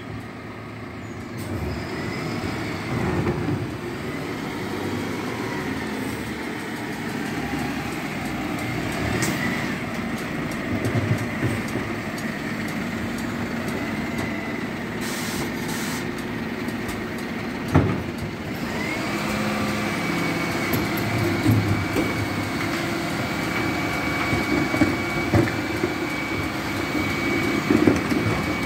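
Renault refuse truck's diesel engine running steadily as it pulls up, with a sharp knock about two-thirds of the way in. A steady high whine then joins the engine, and short knocks come near the end as a wheelie bin is handled at the rear bin lift.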